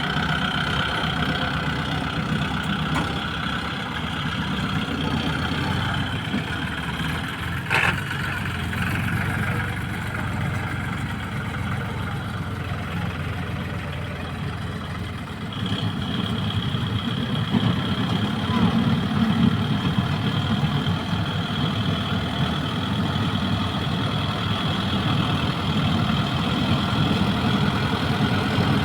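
Tractor engine running steadily, with one sharp click about eight seconds in.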